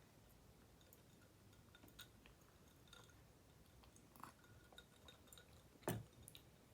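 Mostly near silence, with faint clinks and clicks from a glass of iced drink being handled and one short knock about six seconds in.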